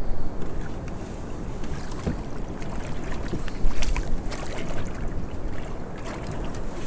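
Wind buffeting the microphone over water sloshing against a small boat's hull, with several light knocks.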